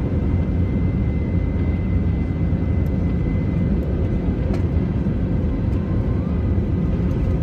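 Airbus A321neo cabin noise on final approach: a steady rumble of the engines and air rushing over the wing, with a thin steady high whine above it.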